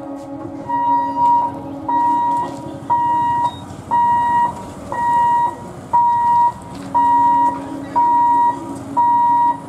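Level-crossing warning buzzer beeping about once a second, an even one-pitch beep, as the boom barrier lifts. Motorcycle engines are running underneath.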